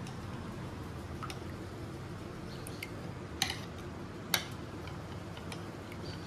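A metal spoon stirring fresh cream in a glass bowl, with a few sharp clicks of spoon against glass, the two loudest about a second apart midway through, over a steady low hum.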